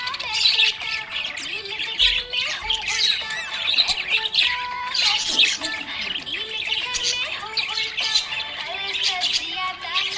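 Budgerigars chattering in a dense, continuous jumble of chirps, warbles and squawks, the typical contented chatter of happy budgies.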